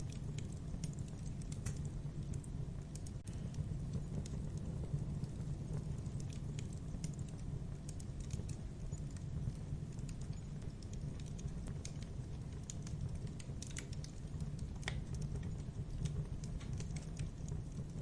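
Logs burning in a fireplace, crackling and popping at irregular moments over a steady low rumble of the fire.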